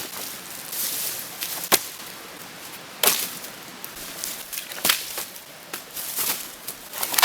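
Wood being chopped: four sharp chopping strikes at uneven intervals of one to two seconds, with rustling in between.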